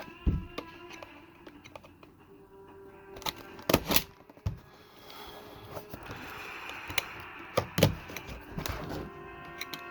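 Cardboard and plastic figure packaging being handled and opened, with a few sharp clicks and knocks, the loudest about four seconds and eight seconds in. Faint music plays underneath.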